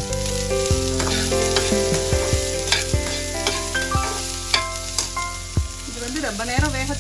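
Chopped onion, green beans and carrot sizzling in oil in a steel frying pan as a metal spatula stirs them, with irregular taps and scrapes of the spatula on the pan. Background music with sustained notes plays underneath.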